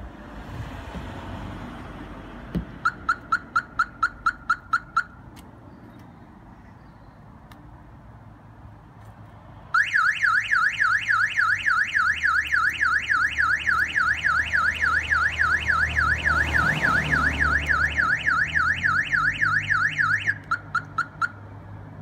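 Clifford 330 X Series car alarm going off. First comes a burst of about nine quick chirps. A few seconds later the siren sounds a loud, fast warbling wail for about ten seconds, ending in a few more quick chirps.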